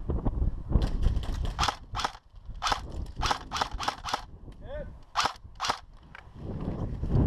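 Airsoft guns firing about a dozen single shots in uneven bursts, with a short pause just past the middle.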